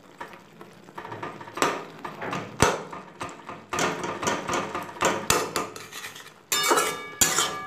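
Metal spatula scraping and knocking against the metal kadai in irregular strokes as it breaks up tamarind in thick, simmering chutney. The strokes grow louder, with a metallic ring, near the end.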